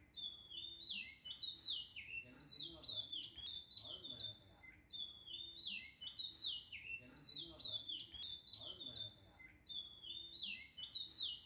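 Birds chirping: short falling chirps repeated over and over in a regular pattern, over a steady thin high tone.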